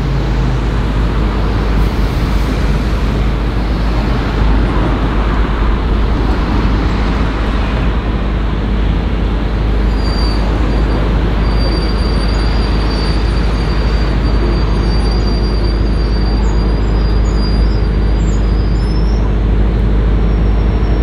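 Steady street traffic with a low rumble, and a thin high squeal that starts about halfway in and lasts roughly ten seconds.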